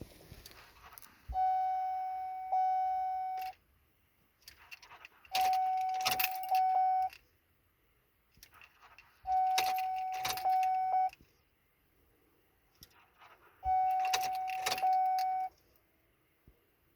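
Keys jangling in the ignition of a 2003 Chevy Silverado as it is tried four times, each time with a steady electronic warning tone from the dash lasting about two seconds. No starter cranking or engine is heard: the truck won't start.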